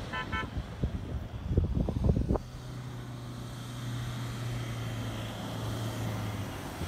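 Ford Endeavour SUV's engine running at a steady low hum as it drives over soft sand, from about two and a half seconds in. Before that there is irregular gusty rumbling, with a few short high beeps at the very start.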